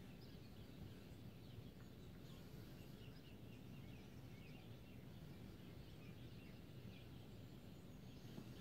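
Faint birdsong: many short chirps from several birds over a low, steady background rumble.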